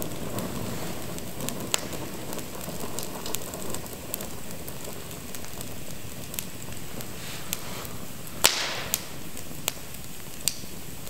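Open fire crackling, with irregular sharp pops and one louder snap about three-quarters of the way through.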